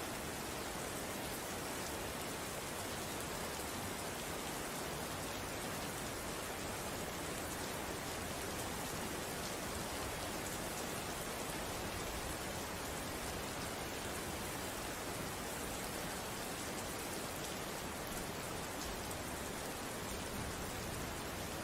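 Steady rain falling on a surface, an even hiss of drops that does not change.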